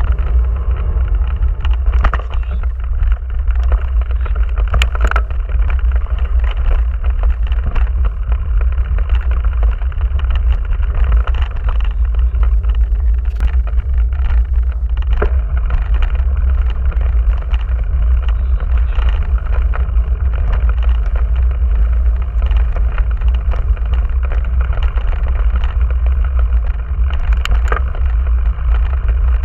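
Mountain bike riding over a rough grassy dirt track, picked up by a camera mounted on the bike: a loud, steady, deep rumble of tyres and frame vibration, with scattered sharp knocks and rattles as the bike jolts over bumps.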